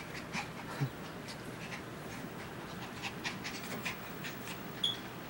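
Two dogs play-wrestling on a bare mattress: panting and snuffling with quick scuffling of paws and bodies on the mattress, a soft thump about a second in, and a brief high squeak near the end.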